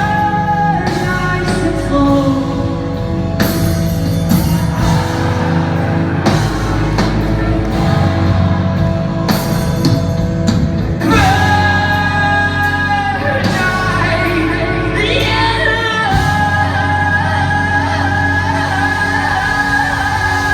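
A post-hardcore rock band playing live, with a singer holding long sung lines over guitars, bass and drums, heard through the reverberation of a concert hall.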